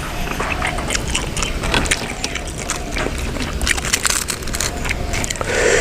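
Close-miked, loud chewing and wet mouth smacking of a man eating raw buffalo-meat larb, a rapid irregular run of clicks over a steady low rumble.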